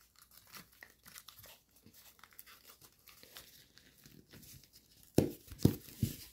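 Foil-backed origami paper crinkling softly as hands crease and shape it, with three louder knocks near the end.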